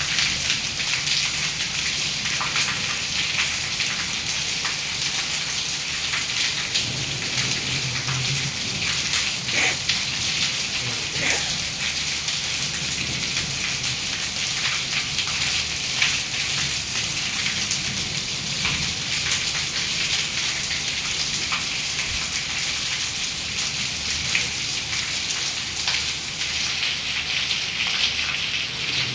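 Heavy rain mixed with hail pelting a wet concrete floor and ledge: a dense, steady hiss scattered with many small sharp ticks.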